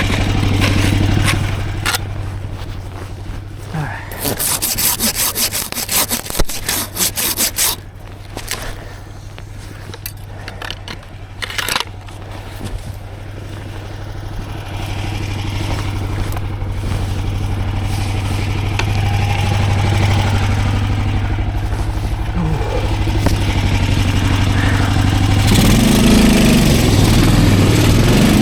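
Snowmobile engine running steadily under way, with a few seconds of rapid rasping scrapes about four seconds in and scattered knocks. The engine grows louder over the second half and revs up and down near the end.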